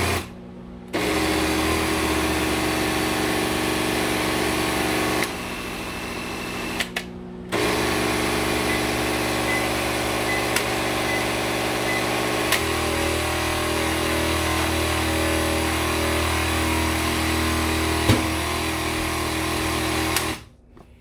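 Countertop blender motor running hard, pureeing red beans with coconut milk into a thick mixture, and coping with the load. It cuts out briefly just after the start and again about six to seven seconds in, restarts each time, and stops shortly before the end.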